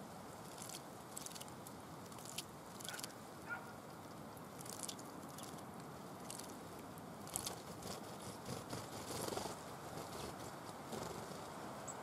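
Great tit bathing in a shallow bird bath: scattered short splashes and flicks of water, with a longer burst of splashing about nine seconds in, over a steady background hiss.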